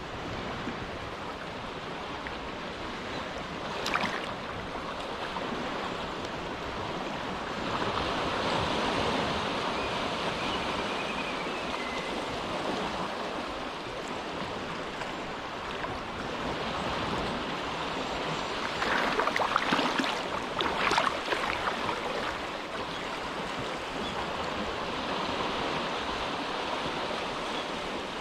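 Small, gentle waves lapping at the shore of a calm cove, the wash swelling and easing, with a few sharper splashes about four seconds in and again near the two-thirds mark.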